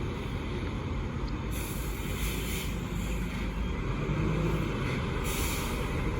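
Heavy truck's diesel engine running with a low, rough rumble as it labours on a steep climb. Two bursts of hiss come over it, about a second and a half in and again near the end.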